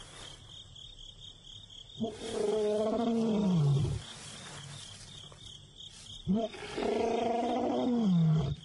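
Young male lion roaring at night, two long calls a few seconds apart, each sliding down in pitch at the end. These are contact roars, calls to a missing companion that go unanswered.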